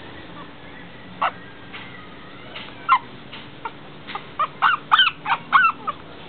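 Young puppies whimpering and yelping in short, high squeaks: a few scattered at first, then a quick run of about eight in the last two seconds.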